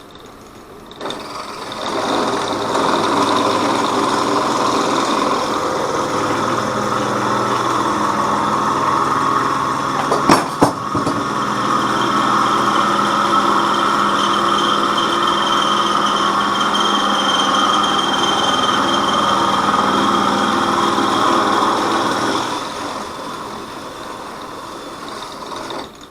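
Electric drill running steadily while drilling a hole through a vise part, coming in about a second in, going up in level a second later as it cuts, and stopping a few seconds before the end. A couple of sharp knocks sound about ten seconds in.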